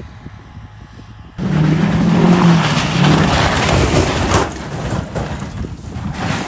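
Pickup truck's engine revving hard as the truck accelerates away on snowy dirt, coming in suddenly about a second and a half in with a loud rush of noise, then easing off after about three seconds.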